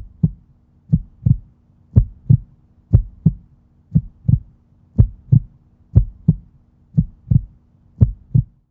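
Heartbeat sound effect: paired low thumps, lub-dub, repeating about once a second over a faint steady low hum.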